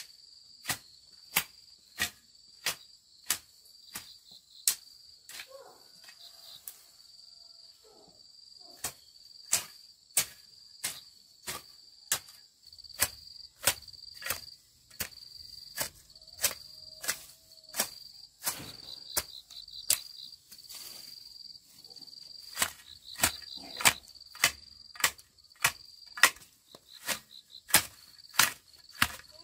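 Hand hoe chopping into soil and weeds in steady, even strokes, about one and a half a second, over a constant high trill of insects.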